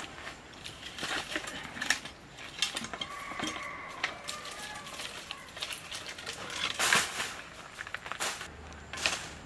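Dry wooden sticks and branches knocking and clattering as they are dropped and laid on a pile of dry cane leaves, in irregular sharp knocks with rustling. The loudest knocks come about two seconds in and in a cluster near seven seconds.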